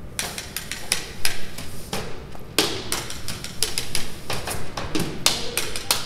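Percussion instruments struck with sticks: a quick series of sharp, dry hits starting just after the beginning.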